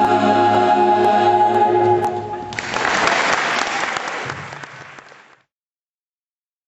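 A small male vocal ensemble holds a final a cappella chord, which ends about two and a half seconds in; audience applause follows, fading and then cutting off.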